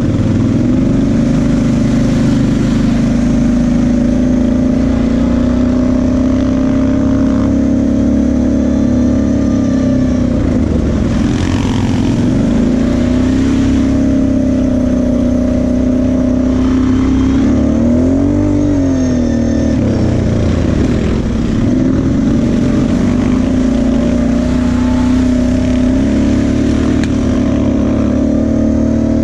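Engine of a green Kawasaki KFX sport quad running steadily under throttle while being ridden, heard from the rider's seat. Its pitch rises and falls once, a little past the middle.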